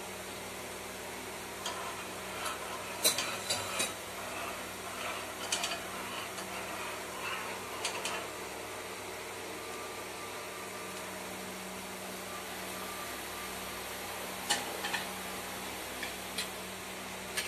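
Steady hiss under a small enamel saucepan of milk heating on a gas burner, with a metal spoon clinking against the pan several times between about 3 and 8 seconds in and a few more times near the end.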